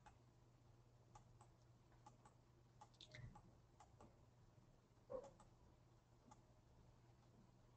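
Near silence: room tone with a steady low hum and a dozen or so faint, short clicks at uneven intervals.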